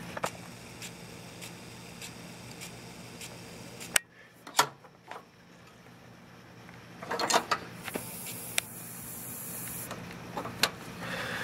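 Scattered light knocks and clicks of hands and a handheld camera moving against parts in a car's engine bay, over a faint steady hum, with a few clustered knocks about four to five seconds in and again about seven seconds in.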